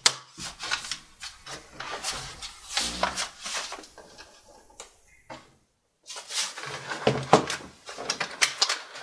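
Plastic clicks and knocks from a Lenovo ThinkPad T530 being handled: its battery pushed into place, then the laptop turned over and set down on a wooden bench. There is a brief gap a little past halfway.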